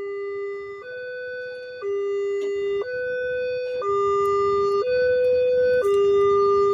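Railway level crossing's electronic warning alarm sounding from its horn loudspeaker: two steady tones alternating low and high about once a second, growing louder, signalling that a train is passing.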